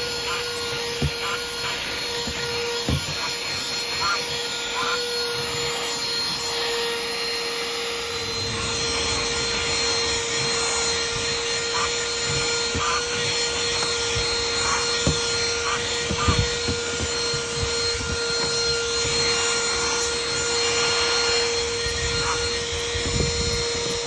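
Minthouz cordless handheld vacuum cleaner running steadily with a constant motor whine, its nozzle rubbing over a car's carpet floor mat, with scattered small clicks and knocks.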